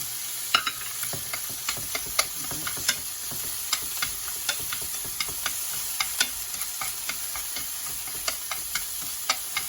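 Oil sizzling in a frying pan as tomato chunks cook, with a utensil clicking and scraping against the pan a few times a second as they are stirred.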